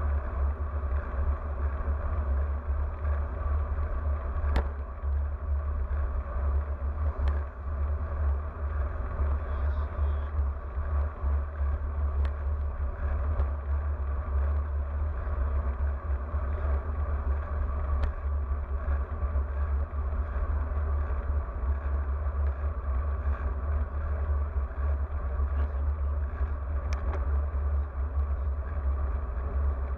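Wind buffeting the microphone of a bike-mounted action camera on a road bike at speed: a steady low rumble with tyre and road noise, broken by a few sharp ticks.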